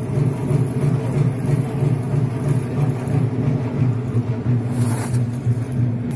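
A steady low mechanical rumble, pulsing evenly about four times a second, with a brief hiss about five seconds in.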